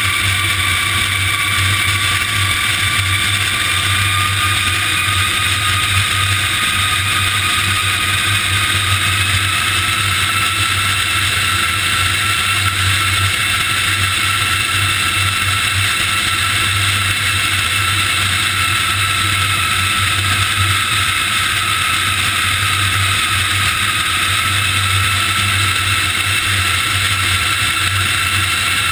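C-5 Galaxy turbofan engines running: a loud, steady jet rush with a whine that rises slowly in pitch.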